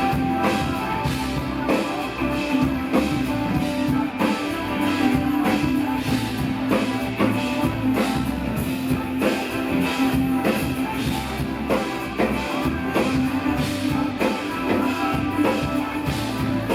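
Live pop-rock concert music in an instrumental passage with no vocals: a drum kit keeps a steady beat under guitar and a held low note.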